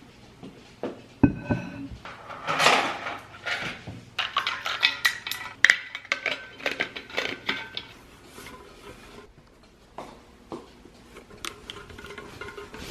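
Dishes and cutlery clinking and clattering: a quick run of knocks and ringing clinks that thins out in the second half.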